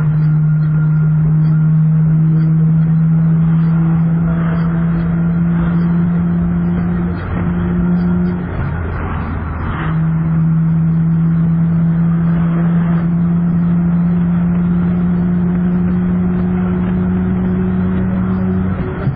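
Car engine droning steadily while accelerating hard at highway speed, its note slowly climbing. The note breaks off about eight seconds in and comes back lower a second or so later, a gear change, then climbs again until another break near the end.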